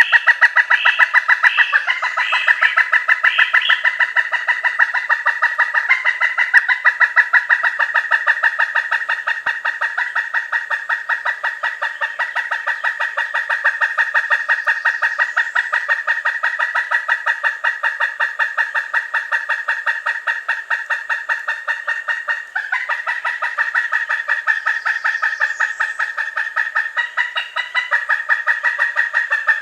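Pileated woodpecker calling: a long, rapid series of loud, sharp 'kuk-kuk-kuk' notes, several a second, with barely a pause.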